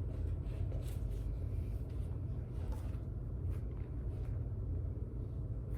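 A steady low rumble, with a few faint brief rustles over it.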